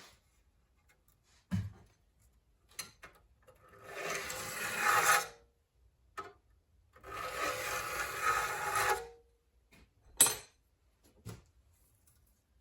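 A saw file drawn across the teeth of a foxtail saw in two long rasping strokes, with a few short knocks before and after. The filing sharpens the saw's teeth.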